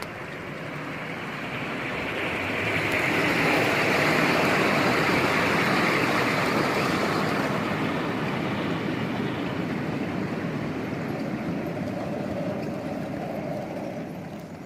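Gauge 3 garden railway train, a small diesel-outline locomotive hauling a long rake of coal wagons and coaches, rumbling past on the track as its wheels roll over the rails. The rumble swells to its loudest about four to six seconds in and then slowly fades as the train moves away.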